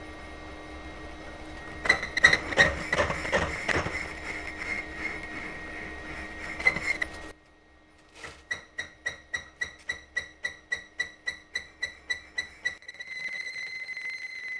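A milling machine's spindle running with a steady motor hum while a single-point tool bit cuts a spinning brazed step pulley that is out of true. The tool strikes the high spots in rapid ringing knocks until it stops abruptly about seven seconds in. From about eight seconds it ticks evenly, about four or five times a second, once per revolution on the high spot, and near the end the cut becomes a continuous ringing contact.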